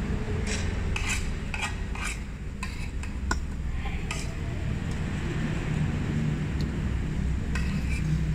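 Metal spoon and fork scraping and clinking against a plate as the last grains of fried rice are scooped up, in clusters of short scrapes during the first few seconds and again near the end, over a steady low hum.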